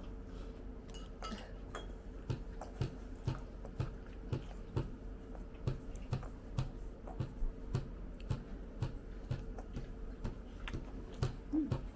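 A person chewing a mouthful of tomato close to the microphone, in even jaw strokes about two a second from about two seconds in, with small wet clicks. A faint steady hum sits underneath.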